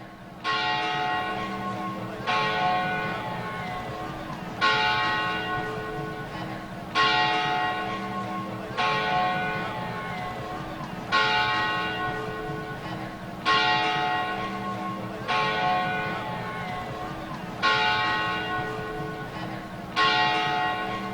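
A large church-type bell tolling, struck about every two seconds with each stroke ringing on and fading slowly into the next, about ten strokes in all.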